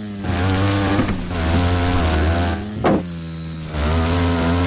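Honda 400EX ATV's single-cylinder four-stroke engine revving hard on a dirt track. A sharp knock comes about three seconds in. The throttle then eases off briefly and comes back on just before four seconds.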